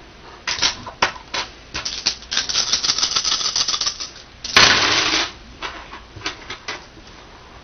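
A handful of small plastic dice rattling and clicking in a hand as they are shaken, then a dense clatter about four and a half seconds in as they are thrown onto a wooden tabletop, followed by a few clicks as they settle.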